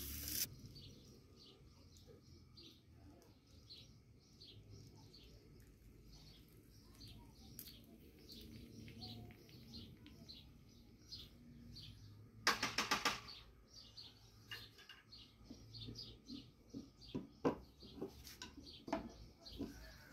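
Small birds chirping over and over, a few chirps a second, with sharp metal clinks and knocks from the steel sinker mold and pliers being handled: a clank at the start, a quick rattle of clicks a little after the middle, and scattered knocks near the end.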